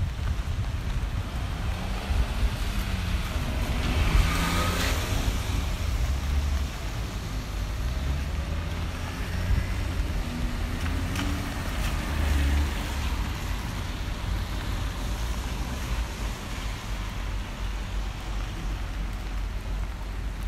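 City street traffic noise on a rainy day: a steady wash of cars on wet road, with one vehicle passing louder about four seconds in, and wind rumbling on the microphone.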